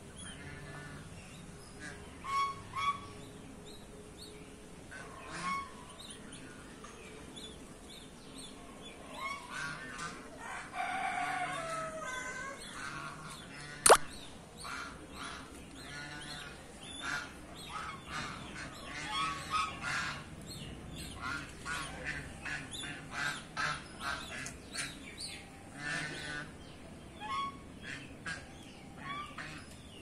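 Domestic geese honking, many short calls scattered throughout and coming thicker in the second half. A single sharp click about halfway through is the loudest sound.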